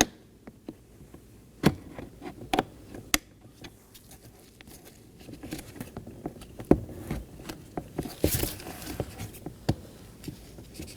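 Scattered sharp clicks and taps of hard plastic door-trim parts and cable connectors being handled and seated, with a brief rustle about eight seconds in.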